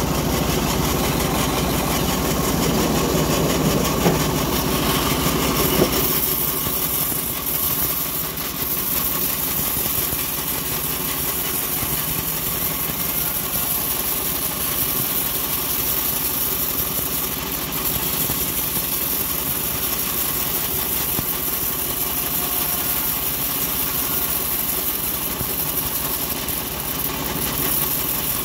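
Homemade bandsaw mill running steadily while its blade rips a long acacia board lengthwise. It is heavier and louder for the first six seconds, with a couple of short knocks, then settles to a steadier, lighter running sound.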